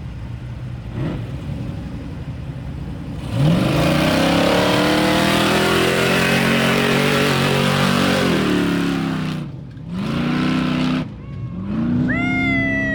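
Off-road desert race car's engine revving hard as it launches from the start. The revs climb suddenly about three seconds in and stay high for several seconds, then dip twice and build again near the end.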